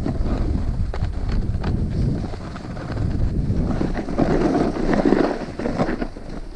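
Snowboard scraping and chattering down an icy, hard-packed snowy road: a loud continuous rasp with small clacks, plus wind on the microphone. It grows louder for a stretch about four to five seconds in. The surface has turned to ice rather than soft snow.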